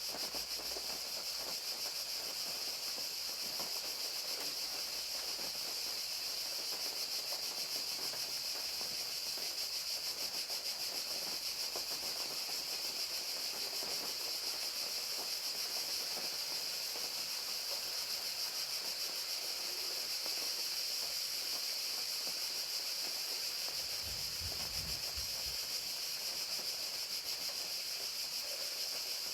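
Crickets chirping in a steady high-pitched trill over the even patter of falling rain.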